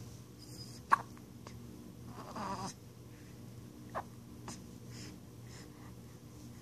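Newborn baby hiccupping: two short, sharp hiccups about three seconds apart, the first about a second in and the louder, the second about four seconds in, with a brief soft vocal sound from the baby between them.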